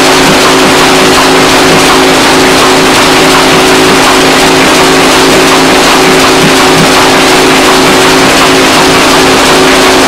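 Sawmill machinery running at a steady speed: a loud, unbroken drone with a constant hum that neither rises nor falls.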